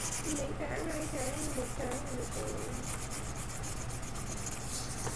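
Colouring tool scratching on paper in rapid back-and-forth strokes as an area is filled in with colour.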